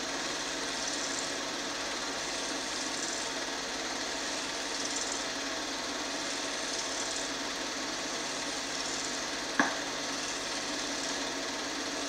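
Film projector running: a steady mechanical whir and clatter, with one sharp click about ten seconds in.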